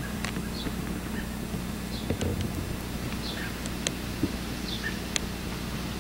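Bird chirps outdoors: short, falling calls about once a second, over a steady low hum.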